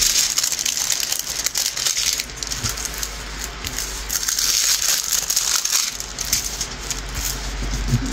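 Diamond painting canvas in its plastic cover film crinkling and crackling continuously as it is handled and stretched flat.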